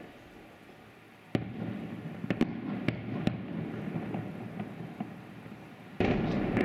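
Aerial fireworks shells bursting: a sharp bang about a second and a half in, a few quicker cracks over the next two seconds, and a second heavy boom near the end, the sound rumbling on after each.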